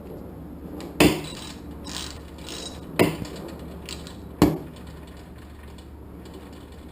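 Hand tools working the bolts on a small engine's air filter mount: three sharp metallic clacks, about a second in, at three seconds and at four and a half seconds, with fainter ratchet-like clicking between.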